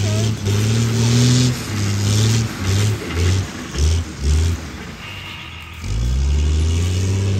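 Engine of walnut-harvesting machinery revving in a run of short bursts. It drops away for about a second near the five-second mark, then runs steadily at speed.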